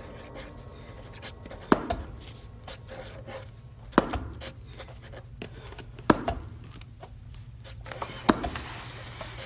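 A ball being bounced against a hard surface, one sharp thud about every two seconds, four times, with faint small knocks in between.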